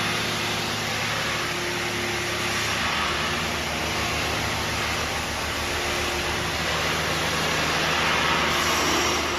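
A CNC turning center running under power: a steady machine hum with a broad hiss over it.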